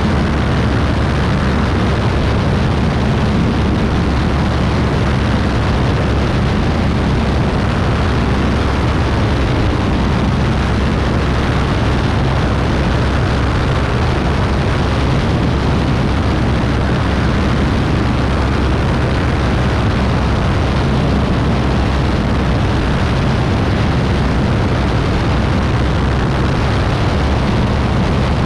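Beechcraft B35 Bonanza's six-cylinder piston engine and propeller running at takeoff power through the end of the ground roll, lift-off and climb-out, a steady loud drone with rushing air noise, unchanging in level.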